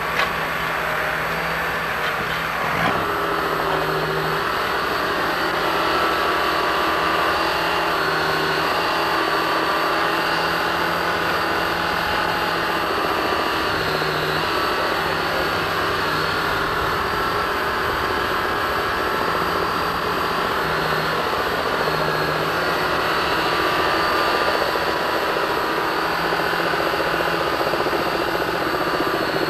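Helicopter running steadily overhead: a continuous engine and rotor drone with several held tones. There is one brief knock about three seconds in.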